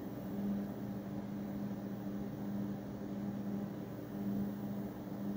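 Dell server's cooling fans running while it boots: a steady hiss with a low hum that swells and eases slightly.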